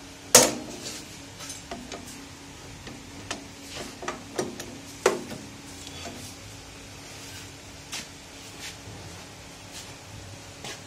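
Metal knocks and clinks as a paste-ink assembly with brass gears is handled and fitted onto the shafts of a steel printing machine: a sharp knock about half a second in, another about five seconds in, and lighter clicks between. A faint steady hum runs underneath.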